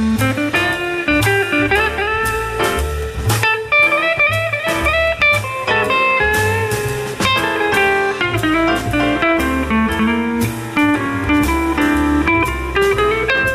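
Instrumental band music in a blues style: a sliding guitar-like lead melody over bass and drums.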